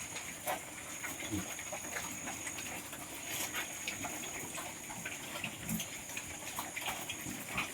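Piglets grunting now and then among scattered short clicks as they feed on pre-starter feed.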